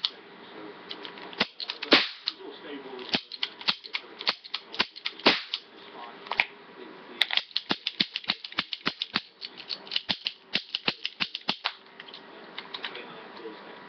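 Toy cap gun firing a ring of paper caps: a string of sharp snapping pops and trigger clicks, spaced out at first, then coming quickly, about three or four a second, before stopping near the end.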